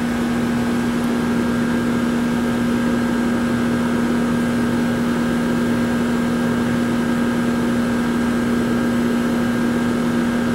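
Steady machine hum with one strong low tone, unchanging throughout, from running air-conditioning equipment.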